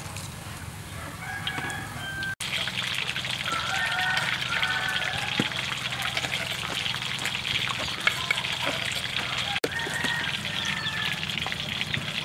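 Chickens clucking now and then over a steady high hiss. The sound drops out briefly twice, about two and a half and nine and a half seconds in.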